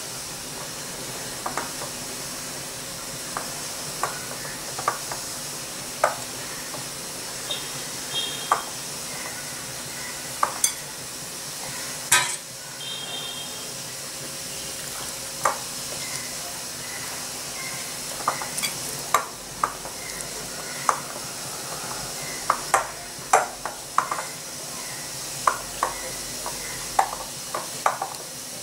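Hands mixing and kneading a wet flour dough in a glass bowl: irregular sharp clicks and knocks of fingers and the bowl against the glass and countertop over a steady hiss, with a couple of brief ringing clinks of a steel bowl against the glass.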